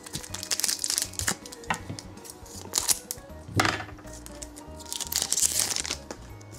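Foil wrapper of a Pokémon booster pack crinkling in several short rustling bursts as it is handled and torn open, over quiet background music.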